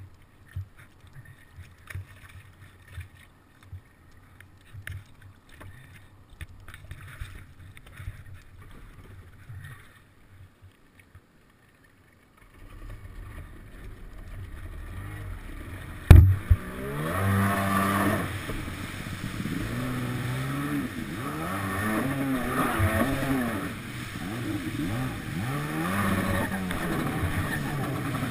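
Kawasaki 750SX stand-up jet ski's two-stroke engine. The first half holds only faint knocks. A low idle then starts, a sharp loud thump comes about halfway through, and the engine revs up and down repeatedly as the ski pulls away across the water.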